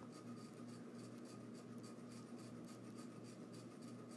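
Faint scratching of a fingertip writing on a touchscreen, a quick run of soft short strokes, over a low steady electrical hum.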